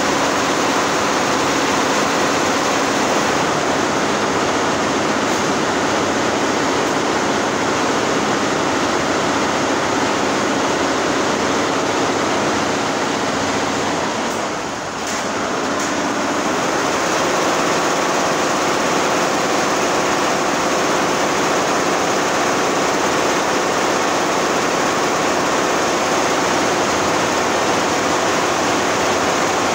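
Steady mechanical din of a long row of multi-head embroidery machines running, with a brief dip in loudness about halfway through.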